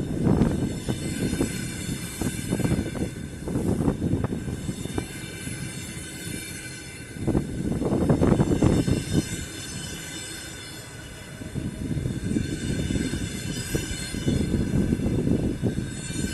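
A passenger train rolling past, its wheels clattering over the rail joints. A steady rumble swells and fades several times as the bogies go by, with short clicks from the wheels.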